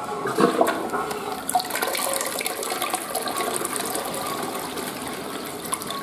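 Western-style flush toilet flushing. The water rushes in about half a second in and then swirls steadily down the bowl, easing slightly near the end.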